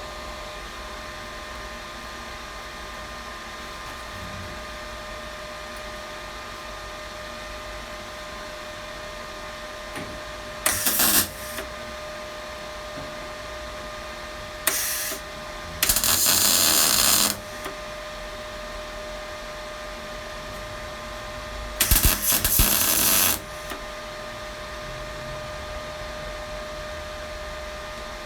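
MIG welder laying short tack welds: four crackling bursts, each about half a second to a second and a half long, the longest in the middle. A steady hum runs underneath between them.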